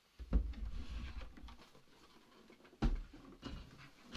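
Handling noise from a new flat television and its packaging: two dull knocks, one just after the start and one near three seconds in, with rustling and small clicks between.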